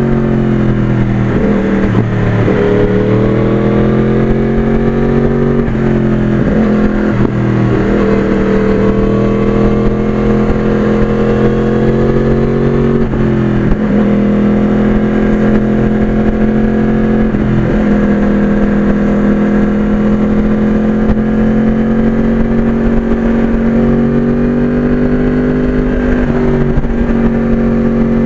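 Motorcycle engine running on the move, its pitch dipping and climbing back several times as the throttle and gears change, with steady wind rumble on the microphone.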